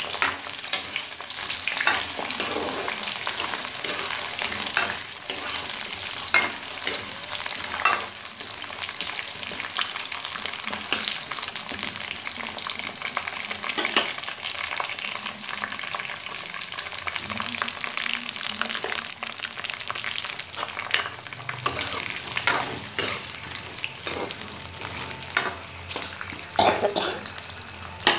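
Potato pieces frying in hot oil in a wok, a steady sizzle as they brown. Sharp clicks come every few seconds as a steel spoon stirs them against the pan.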